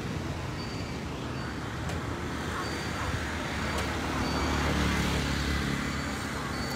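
Road traffic noise from motor vehicles, with one vehicle's engine rumble swelling about four seconds in and easing off near the end.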